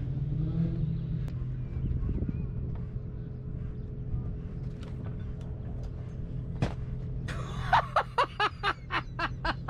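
Sailboat engine humming steadily. About two-thirds of the way in there is a single sharp knock as the thrown water bottle strikes the rigging, followed near the end by a quick run of laughter.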